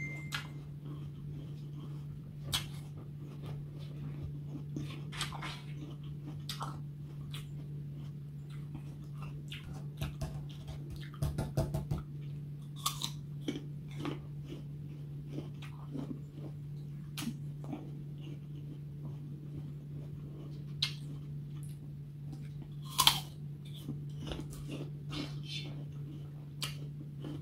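Raw green apple slices being bitten and chewed, with irregular crisp crunches, a quick flurry about halfway through and the loudest bite near the end. A steady low hum sits underneath.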